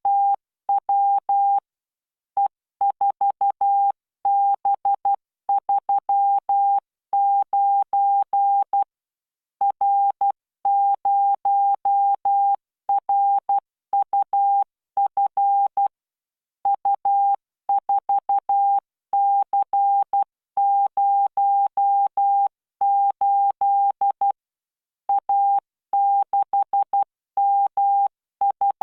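Morse code practice tone from the LearningMorse training software: a single steady beep keyed on and off into dots and dashes at 12 words per minute, with short pauses between characters and words.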